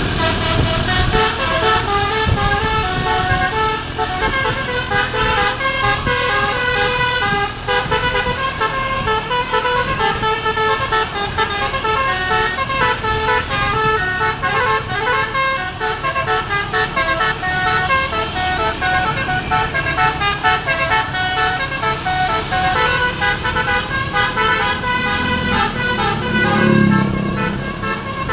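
Basuri musical air horn on a bus playing a fast, rhythmic dance tune of stepping horn notes, with a low rumble underneath.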